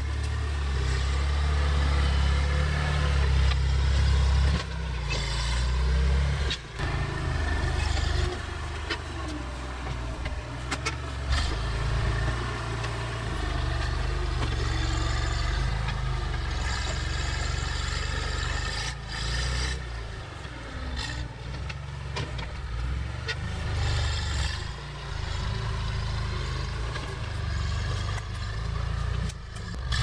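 Engine of an old Massey Ferguson MF-40 tractor-loader-backhoe running as the machine works dirt with its front loader bucket; the engine note swells and eases, with occasional knocks and clanks.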